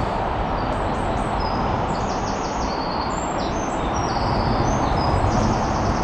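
Steady rushing of the river's running water, with a small songbird singing short, high phrases and quick trills over it from about a second in.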